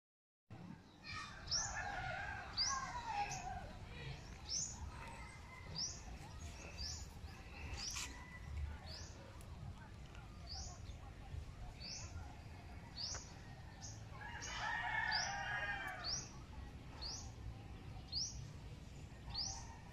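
Birds calling: two longer, wavering calls of about two seconds, one about a second in and one about three-quarters of the way through, over a short high chirp repeated about once a second.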